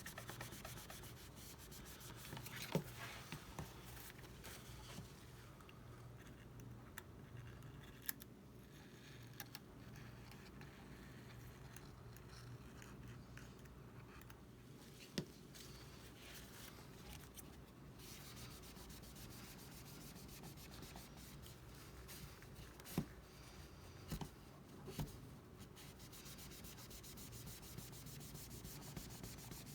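Faint rubbing and scraping as old adhesive and glass bits are cleaned off an iPad frame, with a few sharp taps scattered through.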